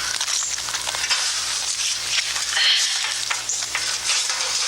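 Steady crackling hiss with scattered clicks over a faint low hum.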